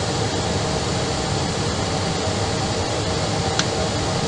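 Steady airliner cabin noise while taxiing: the Airbus's jet engines at idle under an even air-conditioning hiss, with a faint click about three and a half seconds in.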